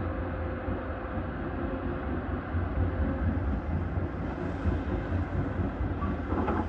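Hyundai R215L Smart X Plus excavator's diesel engine running steadily with a deep, continuous rumble.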